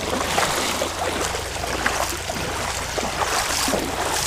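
Shallow water sloshing and splashing, with many irregular short splashes over a steady wash.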